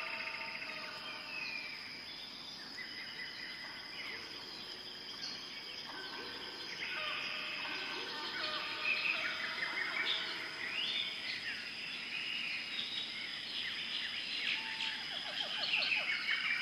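Several birds chirping and trilling together, busier from about halfway through, over a steady high-pitched tone.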